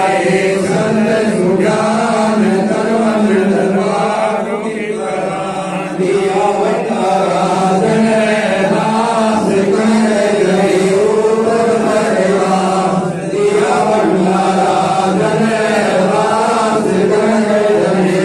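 Group of men chanting a devotional hymn together, led by voices over microphones, in a continuous wavering melody over a steady low drone.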